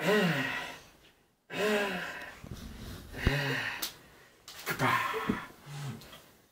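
Several short, breathy, wordless vocal sounds like gasps and exclamations, each rising then falling in pitch, separated by short pauses, with a brief soft thump about three seconds in.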